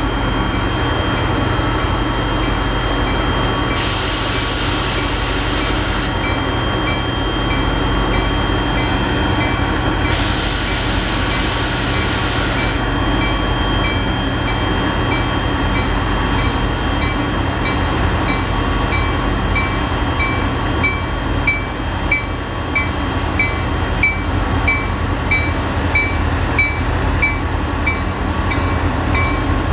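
Diesel-electric freight locomotives led by an EMD GP40-2 rumbling as they move slowly past. A bell rings steadily, about one and a half strokes a second. Two bursts of hiss of about two seconds each come roughly 4 and 10 seconds in.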